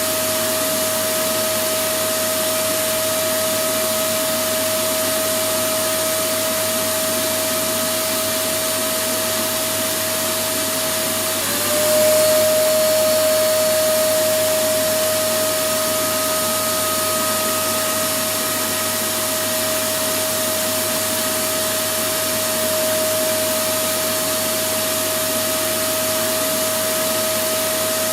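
Vacuum cleaner running steadily, a continuous whooshing noise with a steady high whine. About eleven and a half seconds in the whine breaks briefly and comes back a little louder for a few seconds.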